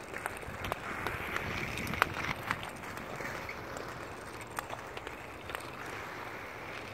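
Inline skate wheels rolling and scraping on an asphalt rink, with scattered sharp clacks of a hockey stick on the puck. The loudest clack comes about two seconds in.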